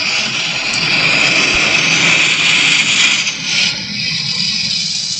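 Car-wash water jets spraying against the car's body and windows, heard from inside the cabin as a loud, even hiss that eases off about three and a half seconds in.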